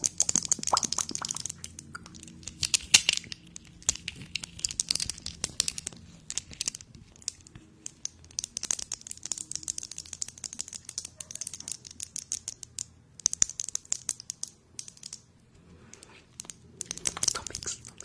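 Close-miked ASMR trigger sounds: rapid, irregular crackling and clicking, with short bursts of crisp hiss every few seconds.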